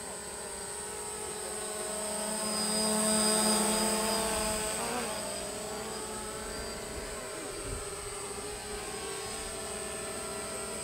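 DJI Phantom quadcopter's propellers and motors buzzing as it hovers close, getting louder about three seconds in. Around five seconds in its pitch dips and comes back up as it manoeuvres.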